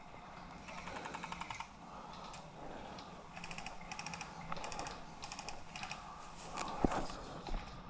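Airsoft gun firing short full-auto bursts: runs of rapid clicks, about fifteen to twenty a second, repeated several times. A single sharp knock comes near the end.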